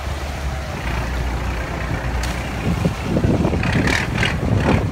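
Steady low engine rumble from a bangka, a Philippine outrigger dive boat, running close alongside, with a few short hisses near the end.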